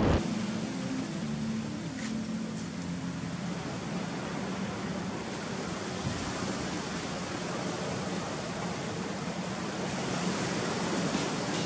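Sea surf washing steadily over a rocky shoreline.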